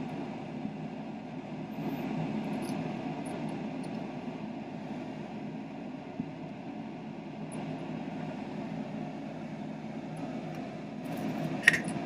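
Steady fan-like background hum with no change in pitch or level, and a single sharp click near the end.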